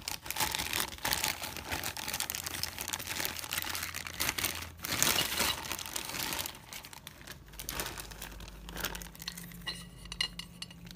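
Clear plastic parts bag crinkling as it is handled, a dense crackle for most of the first seven seconds, then quieter.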